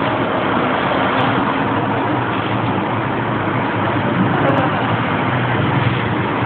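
Steady running noise inside a Pesa 120Na low-floor tram standing still, its onboard equipment humming low under the sound of passing street traffic.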